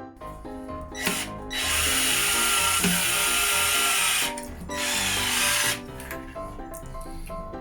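Electric screwdriver driving a grab bar's mounting screws into the wall: a short burst about a second in, then a steady run of nearly three seconds, then another of about a second. Background music plays underneath.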